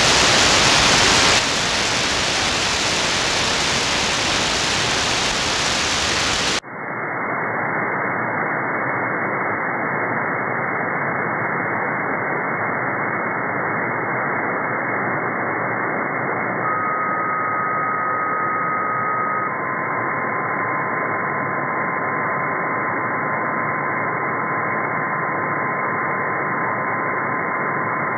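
Shortwave receiver static on the empty 11-meter CB band from an SDRplay RSP1A: a wide, bright hiss in AM that turns into a narrower, duller hiss about six seconds in as the receiver goes to upper sideband. Later a steady carrier whistle comes in, drops to a lower pitch a few seconds after, and holds almost to the end.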